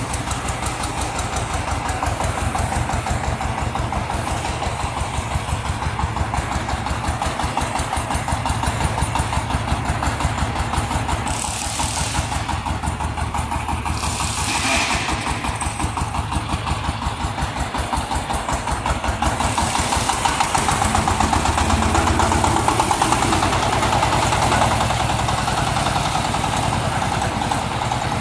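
Mini tractor's small engine running under way, a steady rhythmic putter from its firing strokes that grows somewhat louder in the second half.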